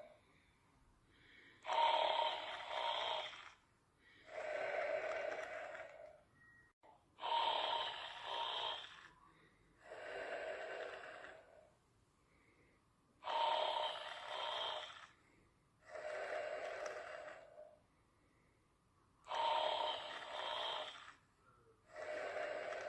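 Snoring in sleep, slow and regular: each breath is a louder snore followed by a softer one, about one breath every six seconds, four breaths in all.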